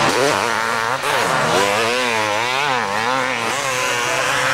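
Motocross motorcycle engine revving, its pitch rising and falling several times as the rider works the throttle through the sand.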